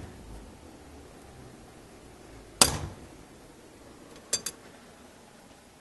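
Hammer striking a metal ABUS 410 bike lock: one hard, ringing blow about two and a half seconds in, then two lighter knocks in quick succession over a second later. The lock is withstanding the blows.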